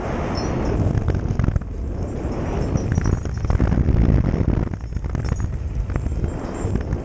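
Mountain bike riding over a rough trail: a heavy, continuous rumble from tyres and wind on the microphone, with many sharp knocks and rattles as the bike hits bumps and stones.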